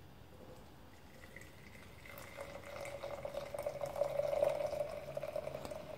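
Freshly boiled milk poured from a stainless steel jug into a glass mug. The pour starts about two seconds in and grows louder as the glass fills.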